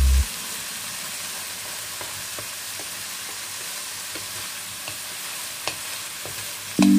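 Eggs, sliced pork and diced carrot sizzling steadily in a non-stick frying pan while a spatula stirs them, with light scrapes and taps of the spatula against the pan.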